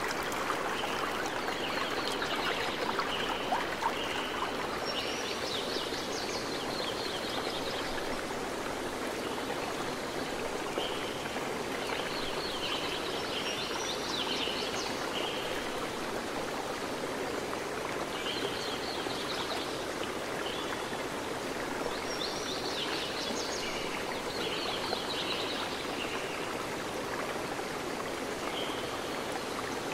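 Steady rush of running water, like a stream, with birds chirping in short runs every few seconds.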